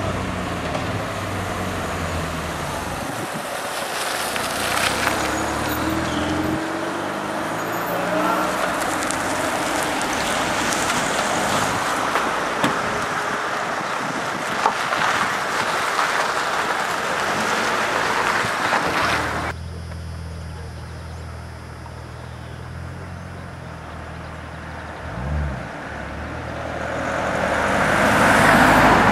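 Motor vehicles of a cycle-race convoy passing on a road: steady engine and tyre noise, dropping quieter after an abrupt cut about two-thirds of the way through, then a police car approaching and growing louder near the end.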